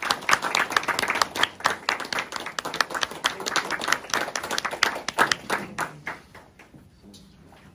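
Audience clapping, a dense patter of hand claps that thins out and dies away about six to seven seconds in.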